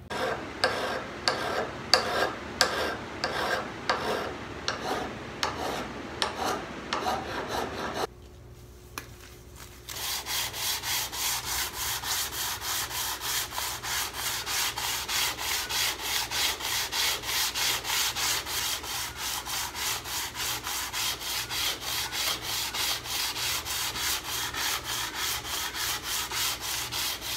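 Steel sole of a metal infill shoulder plane being lapped by hand on sandpaper over a flat surface, in fast, even back-and-forth scratching strokes of about three a second from about ten seconds in. This flattens the sole and keeps it square. Before that, slower scraping strokes of about two a second stop at around eight seconds in.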